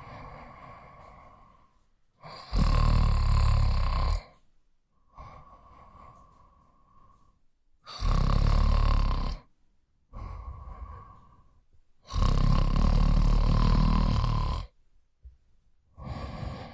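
A person snoring: three loud snores with a deep rattle, each lasting one and a half to two and a half seconds, the longest near the end. Softer, breathy sounds come between them.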